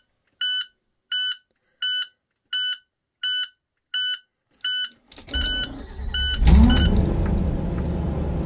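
A dashboard warning tone beeps about every 0.7 s for some five seconds. Then the starter cranks the bus's cold PSI 8.8-litre gasoline V8, which catches with a brief rising flare about a second later and settles into a steady fast cold idle.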